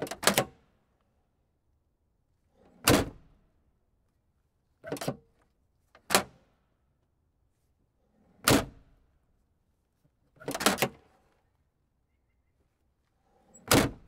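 Car trunk lid and latch: a series of separate thunks and latch clicks, about one every two seconds, some of them doubled, with silence in between.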